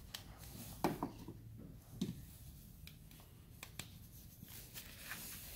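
Plastic clicks and light rubbing as bulbs are twisted out of an Audi A4 B8 rear bulb board and into the new one: a handful of sharp clicks, the loudest about a second and two seconds in.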